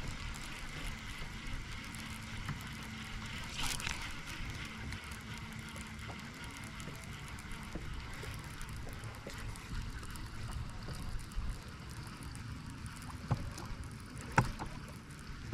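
Wind buffeting the microphone with a low rumble, and a few short knocks, the sharpest about fourteen seconds in.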